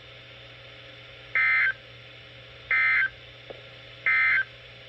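Emergency Alert System end-of-message data tones: three short, identical digital warbling bursts about a second and a half apart, marking the end of the flood warning before the next message starts. A faint steady hum runs underneath.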